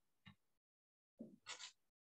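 Near silence, broken by a few faint, brief noises: one just after the start and a quick cluster of three a little past the middle.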